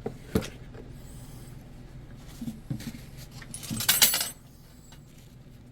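Handling noises at a workbench: a sharp click, a few soft knocks, then a brief loud scraping rustle about four seconds in, over a steady low hum.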